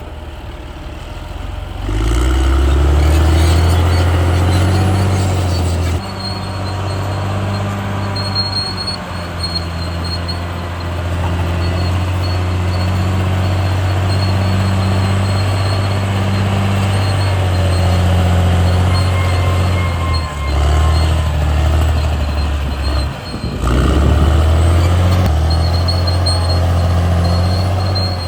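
Caterpillar D6R XL crawler bulldozer's diesel engine running under load. The engine note shifts to new pitches abruptly several times, with a faint high whine above it.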